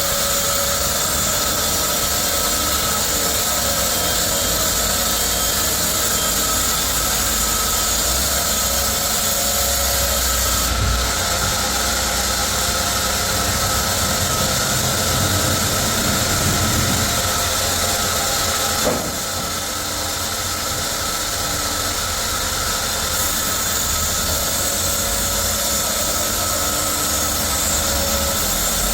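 Sawmill machinery running steadily, a loud even mechanical noise with a constant hum. About two-thirds of the way through there is a sharp click, and the noise drops a little.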